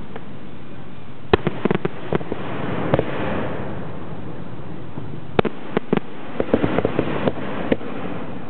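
Zambelli aerial fireworks going off: sharp bangs of shells bursting, a few about a second in and a quicker run of them from about five and a half to eight seconds, over a constant hiss.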